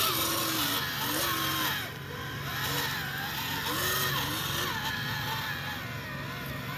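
Radio-controlled Nissan dump truck driving over dirt: its motor and gearbox whine, the pitch rising and falling with the throttle over a steady low hum.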